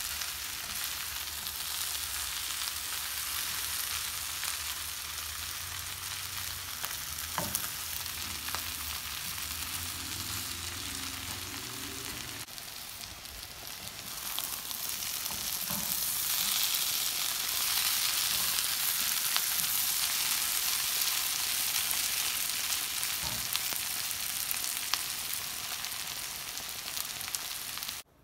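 Potatoes and green beans sizzling as they fry in oil in a pan, with a silicone spatula scraping and stirring them now and then. A low hum underneath stops about halfway through. The sizzle grows louder after that and cuts off suddenly near the end.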